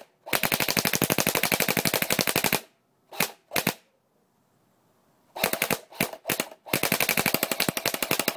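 Echo 1 P90 airsoft electric gun firing full auto in rapid bursts: one burst of about two seconds, two quick short bursts, a few more short bursts, then a long burst starting near the end.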